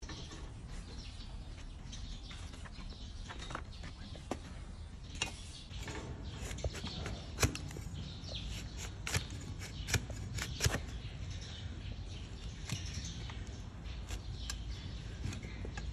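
A long-handled hoof-paring blade cutting into a donkey's hoof horn: a series of sharp, crisp cracks and scraping cuts as slices of horn come away, starting a few seconds in and most frequent in the middle stretch, over a low steady background rumble.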